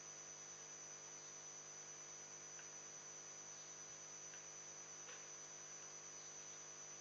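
Near silence: a steady electrical hum, with a few faint ticks.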